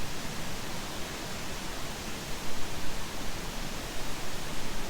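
Steady rushing background hiss with no distinct events.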